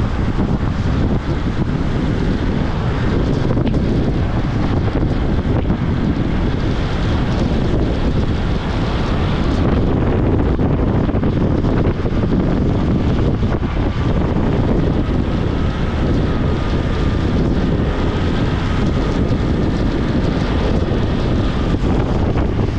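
Heavy wind buffeting a camera microphone moving at downhill-skateboarding speed, over a steady low rumble of skateboard wheels rolling on asphalt. A faint thin whine rises out of the noise in the second half.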